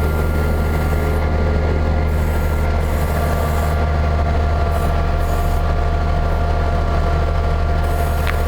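Tucker Sno-Cat's engine running steadily under load, with a rubbing, faintly whining sound from its tracks as they move through deep snow.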